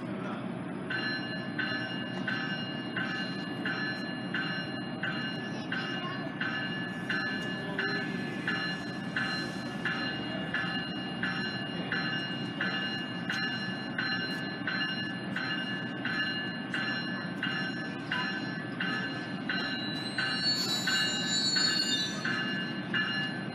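A railway bell ringing steadily about twice a second over a low, steady rumble, with a short high squeal near the end.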